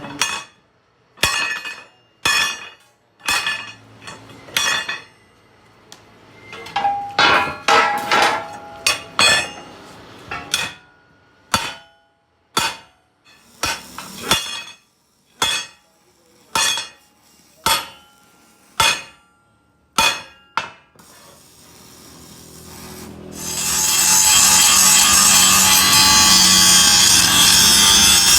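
Hammer blows on metal, each ringing briefly, about one a second with a quicker flurry partway through. After a short pause a power tool starts, about five seconds before the end, and runs loud and steady.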